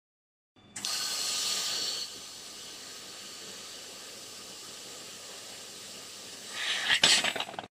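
Handheld fiber laser head cutting a metal tube, with a hiss of assist gas and spatter. It is loudest for the first second and a half, then steadier and quieter, and near the end it grows louder and crackly with one sharp click.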